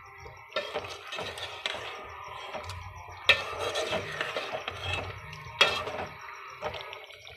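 Perforated metal skimmer spoon stirring chunks of chicken in a thick wet masala in a cooking pot: irregular scraping and squelching against the pot, with two sharp knocks of the spoon on the pot, about three and five and a half seconds in.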